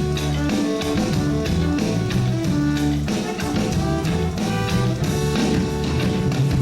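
Live reggae band playing an instrumental passage, with bass, guitar and drums over a steady beat.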